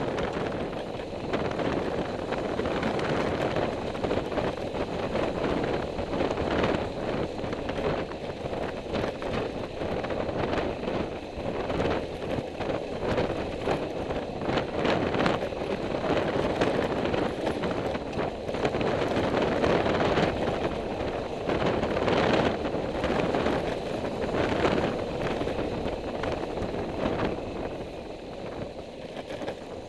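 A vehicle on the move: steady road and wind noise buffeting the microphone, with frequent short knocks and rattles from riding over an uneven surface, easing a little near the end.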